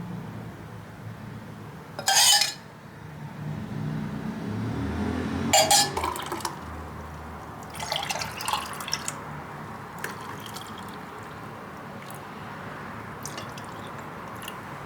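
Liquid being poured into a glass container, with a sharp knock or clatter about two seconds in and another near the middle, then a few light clinks of kitchenware.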